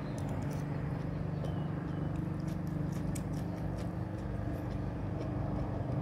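Chewing of a mouthful of food with small mouth and utensil clicks, over a steady low motor hum.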